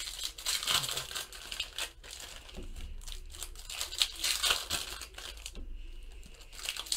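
Foil wrappers of baseball card packs crinkling and crackling as they are torn open by hand, in two spells of rustling with a brief lull near the end.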